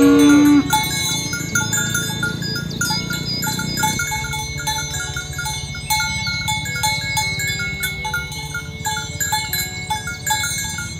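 Bells ringing over and over at a few fixed pitches, chime-like, as cattle are driven along, with the tail of a cow's low moo cutting off about half a second in.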